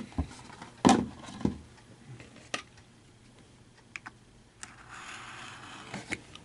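Scattered clicks and taps with some soft rustling: the card box and its packaging being handled and opened.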